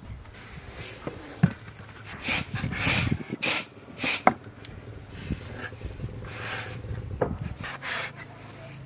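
Kitchen knife cutting raw chicken on a wooden cutting board: several short scraping strokes and a few sharp knocks of the blade against the wood.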